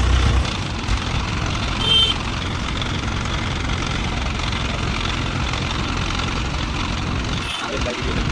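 An engine running steadily, an even mechanical hum without changes in pitch.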